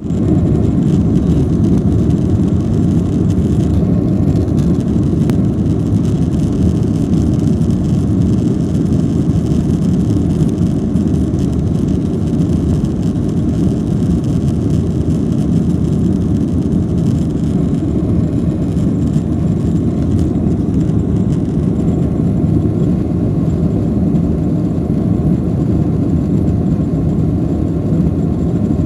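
Steady low rumble of a jet airliner's engines and cabin noise heard from inside the cabin while the plane moves along the ground, holding an even level without building up.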